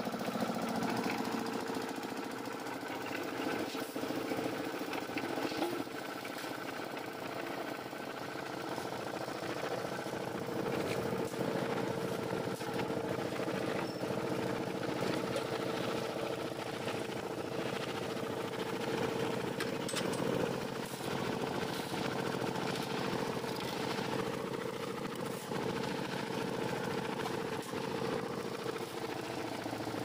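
Portable concrete mixer running steadily: its small engine hums while the drum turns and the wet concrete and gravel inside tumble with an irregular clatter.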